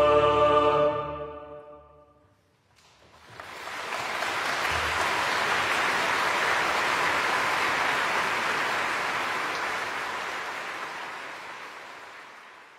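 A held choral chord fades out in the first two seconds; after a short gap, applause comes in about three seconds in as an even wash of clapping and slowly fades away.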